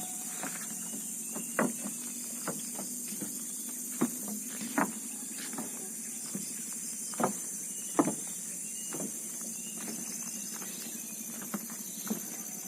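Footsteps on hard ground: irregular sharp knocks, some louder than others, over a steady high hiss.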